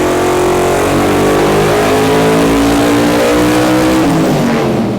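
Twin-turbo Holden V8 engine of a VH Commodore running loud, its revs climbing slowly for a few seconds and then dropping back near the end.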